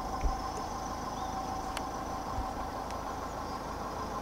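Narrowboat diesel engine running steadily: a low rumble with a faint steady whine over it.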